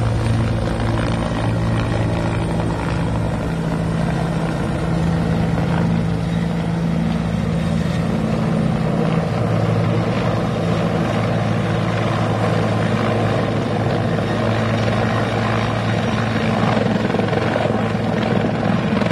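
Helicopter running steadily close by as it comes in and settles onto a landing pad; the hum of rotor and engine runs evenly and changes pitch slightly about halfway through.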